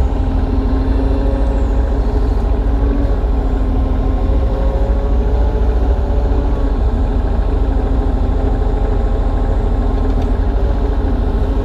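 Kubota U35-3 mini excavator's diesel engine running steadily under working load, with the hydraulics working the arm and bucket in the ground.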